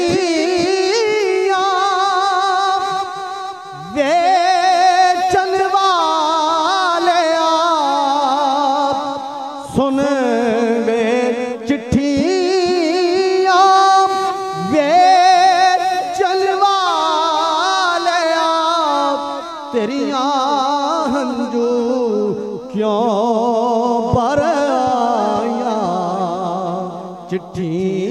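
A man singing a Punjabi Sufi kalam into a microphone in long, ornamented held notes with a wavering vibrato, phrase after phrase with short breaks for breath.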